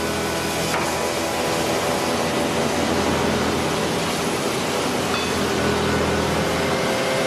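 Background music of sustained chords over a steady noisy hum. The chord shifts about a second in and again about five seconds in.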